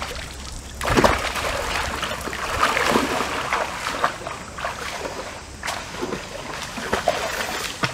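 Water splashing and sloshing as a person wades into a shallow stream, starting about a second in, with a few sharp knocks among it.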